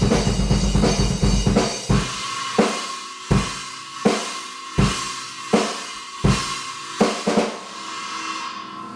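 TAMA drum kit played hard: a dense run of rapid snare and bass drum hits for about two seconds, then slower single accented hits about every three-quarters of a second with cymbals ringing between them. The cymbals ring away near the end as the playing stops.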